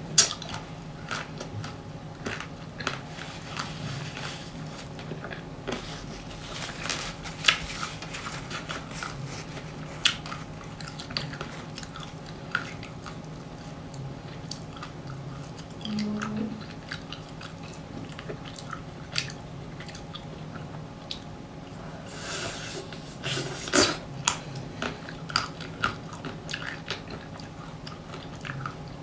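Close-up biting and chewing of a homemade ice cream bar with a thick, hard crisp shell: the shell cracks sharply as it is bitten, then crunches and is chewed, in irregular bites. The loudest cracks come just after the start and in a cluster about 23 to 24 seconds in.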